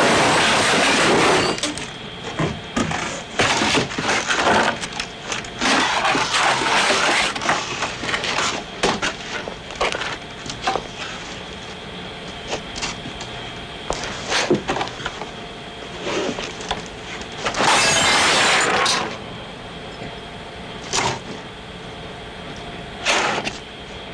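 Foley smash effects: a run of crashing, cracking and breaking impacts with scattered clatters. Two long, loud crashes stand out, one at the start and one about two-thirds of the way through.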